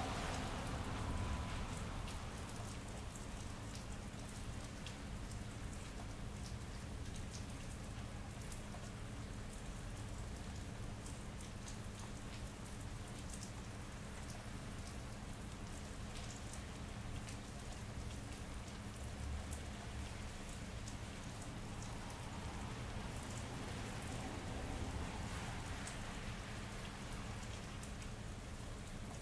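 Steady rain falling on wet pavement and hard surfaces, with many scattered close drops ticking. A steady low hum runs underneath.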